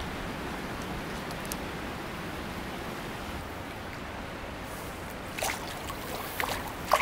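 Small creek's water running steadily over its bed, with a few short, sharp sounds near the end.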